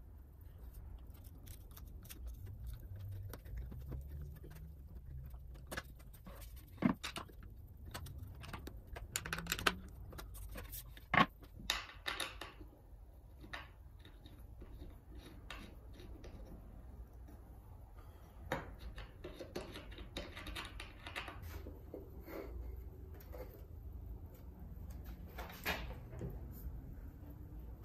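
Scattered light clicks, taps and knocks of small metal hardware and walnut pieces being handled on a workbench, the sharpest knocks about 7 and 11 seconds in, over a low steady hum.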